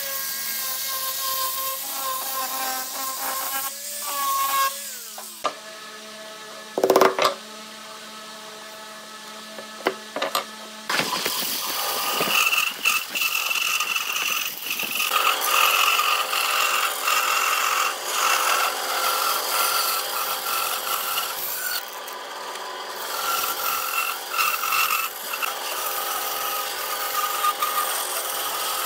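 A hand-held electric drum sander runs with a steady whine as it sands a curved wooden arch. After a quieter stretch with a single sharp knock, a bandsaw cuts steadily through a thick wooden block along a curve, the loudest sound here.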